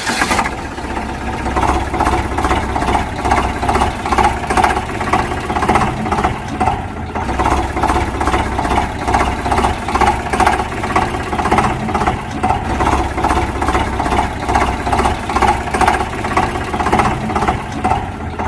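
An engine running steadily at idle with a regular, even throb.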